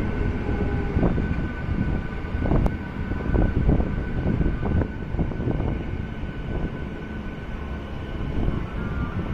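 MEMU electric train running along the track: a steady rumble with irregular knocks from the wheels and carriage, and a faint steady whine above it.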